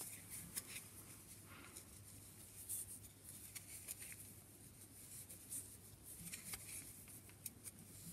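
Faint, irregular clicks and light rustling of 10 mm wooden knitting needles and chunky wool yarn as stitches are purled by hand.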